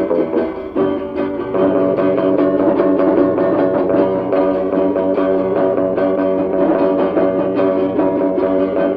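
Guitar band playing an instrumental rock number: guitars and bass over a steady drum beat.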